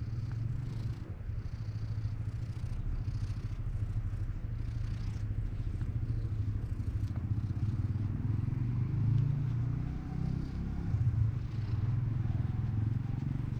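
Black-and-white cat purring steadily as it is stroked, a low pulsing rumble that swells a little twice in the second half.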